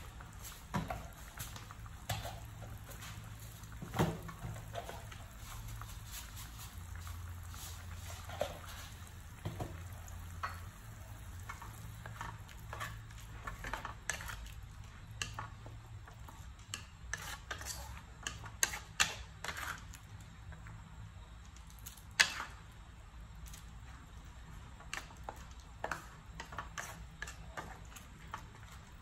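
Wooden spatula stirring a minced-meat tomato sauce in a metal wok, with irregular scrapes and knocks against the pan. The sharpest knock comes about two-thirds of the way through, over a low steady hum.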